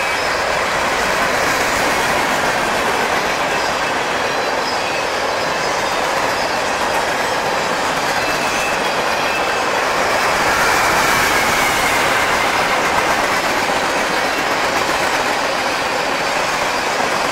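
Freight cars of a long mixed freight train, tank cars and covered hoppers, rolling past close by: a steady clatter of steel wheels over the rails, with faint high wheel squeal. The sound swells slightly about two-thirds of the way through.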